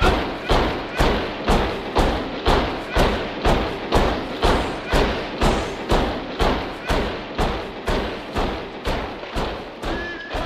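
Heavy thuds in a steady rhythm, about two a second, like many boots stamping in step on a march. They slowly get quieter.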